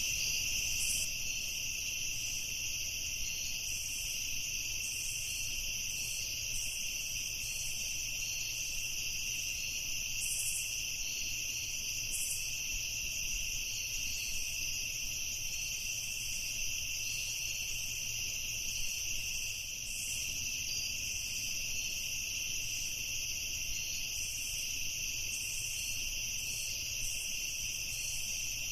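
Night ambience of crickets chirring: a continuous, dense chorus of high insect trilling, with a faint low rumble underneath.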